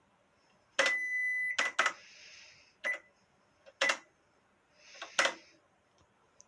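Cash register keys being pressed: a sharp click with a steady electronic beep held for just under a second about a second in, then several more single key clicks roughly a second apart, one with a short beep.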